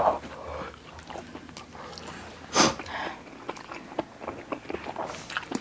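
Mouth and breathing sounds of people suffering from very spicy fire noodles: small lip smacks and clicks, and one loud, sharp intake of breath about two and a half seconds in.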